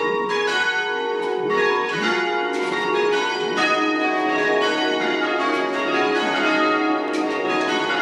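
A ring of six church bells (a light 5 cwt ring in C sharp, cast by Whitechapel in 1988) being rung up from the down position, several strikes a second overlapping and ringing on into one another.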